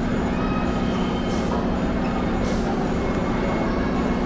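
Steady rumble of nearby road traffic, an engine running close by, with short hisses about once a second.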